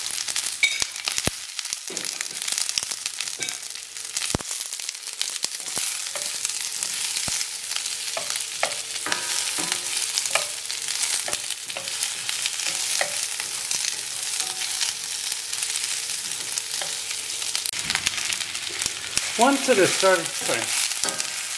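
Onion wedges sizzling steadily as they fry in butter in a metal frying pan, stirred with a utensil that clicks and scrapes against the pan now and then.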